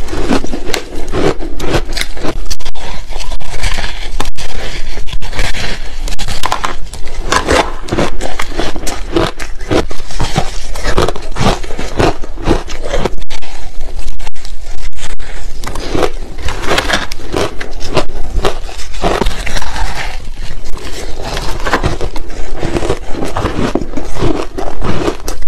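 Freezer frost ice being chewed: a dense run of crisp crunches and crackles that goes on without a break.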